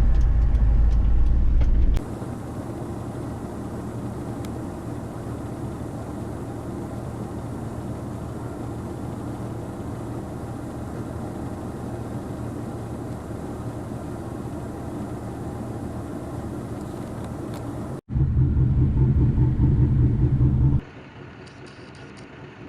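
A car driving, with steady engine and road noise heard from inside. The level jumps abruptly several times, with a loud low rumble in the first two seconds and again for a few seconds near the end, and a quieter steady drone between.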